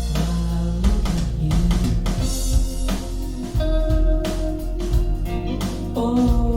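Recorded music with guitar, bass and drums played back through SVS Prime Tower floor-standing speakers, with a strong, steady bass line.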